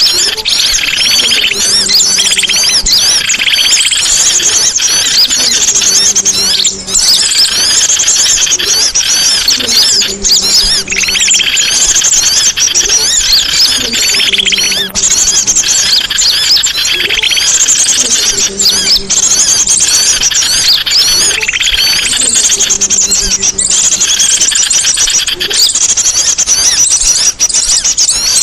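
Songbirds singing continuously: a dense, fast run of high chirps and trills, with a low coo-like call repeating about every two seconds underneath.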